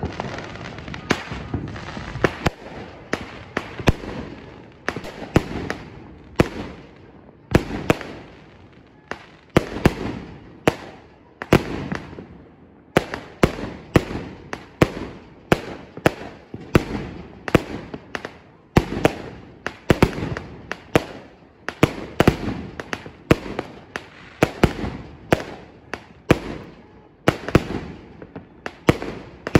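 Consumer firework cake firing aerial shots in a steady string, about one or two sharp bangs a second, each trailing off in a short echo.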